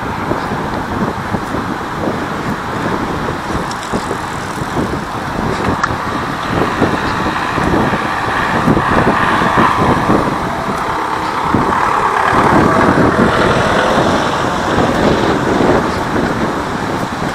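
Steady road-traffic noise: the rush of passing vehicles, swelling louder about eight seconds in and again around twelve to fifteen seconds.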